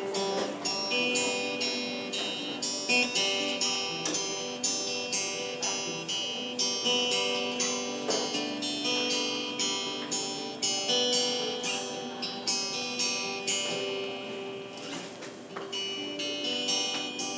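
Acoustic guitar playing a song's instrumental intro: a steady rhythm of picked and strummed chords that ring on between strokes.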